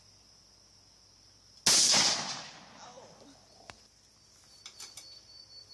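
A single pistol shot about two seconds in, its report echoing across the field and fading over about a second.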